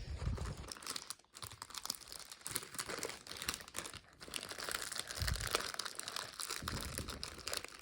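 The wrapper of a pack of Match Attax football trading cards being opened by hand: irregular crinkling and tearing, with a few dull handling thumps.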